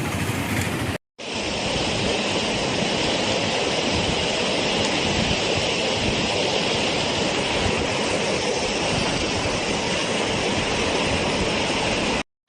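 Steady rushing of water, with no pitch or rhythm in it. It breaks off in a brief dropout about a second in and starts again straight away.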